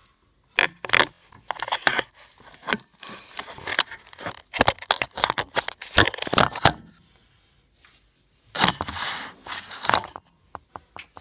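Close, irregular scraping, rustling and knocking handling noise as the phone is pushed in among toys and a white rope basketball net. It comes in two bouts with a short lull about two-thirds of the way in.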